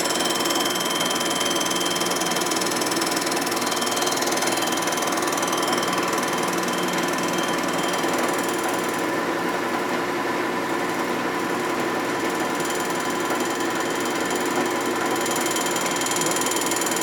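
Cylinder honing machine running steadily, its hone stroking in a Harley-Davidson Sportster 1200 cylinder bore as the bore is honed oversize.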